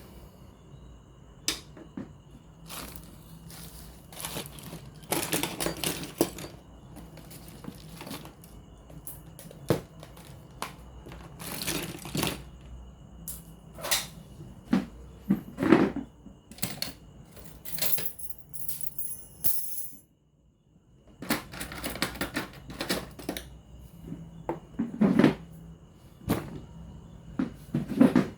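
Irregular clicks, taps and knocks of hands and tools working on a radio cassette recorder during repair, over a faint steady high whine, broken once by a short silent gap.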